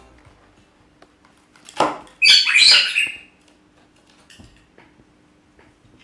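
A caique parrot giving a burst of loud, harsh screeches about two seconds in, lasting about a second.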